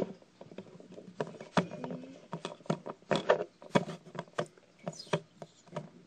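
Light, irregular taps and clicks of a small plastic Littlest Pet Shop dog figure being handled and knocked against a scrap of cardboard on a plastic surface, about two a second.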